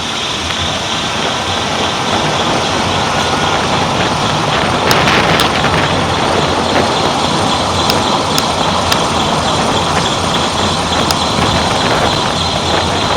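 Steady tyre and wind noise from a car's front driver-side wheel rolling at about 20 km/h, picked up right beside the wheel, with a few light ticks in the middle. The owner suspects a worn front wheel hub bearing, which he says hums from 20 km/h.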